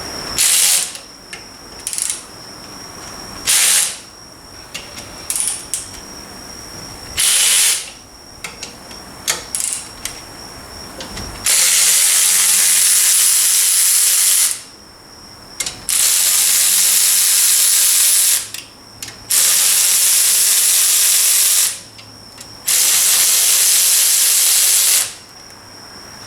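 Air ratchet running in bursts as it undoes the bolts of a Suzuki Carry's rear differential-lock actuator: a few short spurts first, then four longer runs of about three seconds each, each one a loud hiss of exhaust air.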